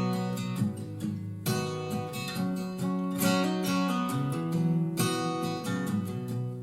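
Instrumental passage of a pop song led by strummed acoustic guitar chords, with the chords changing every second or two. It is played back through a Telefunken HL 870 CD three-way loudspeaker.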